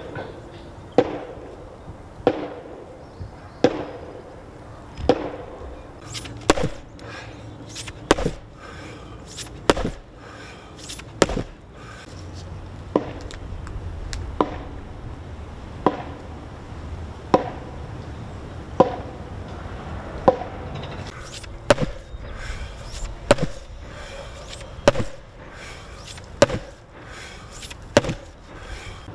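An ash log being pounded for basket splints: heavy, evenly paced blows on the wood, about one every second and a half, to loosen its growth rings. Lighter, sharper knocks fall between the main blows in the middle stretch and again near the end.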